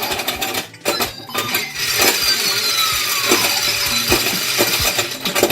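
A plastic electronic pinball gumball toy in play: sharp clicks and knocks of the flippers and ball, then from about two seconds in a steady rattling with the toy's electronic sound effect of falling tones.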